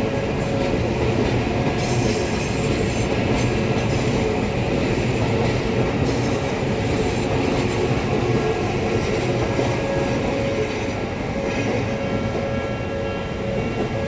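An Odakyu Line electric commuter train running past a level crossing: a continuous rumble of wheels on rails with a thin, steady squeal over it. It fades a little about eleven seconds in.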